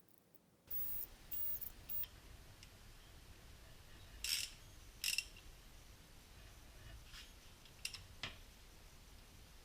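Scattered clicks and short scrapes of tools and metal parts being handled during engine work, with two louder scrapes about four and five seconds in, over a low steady hum.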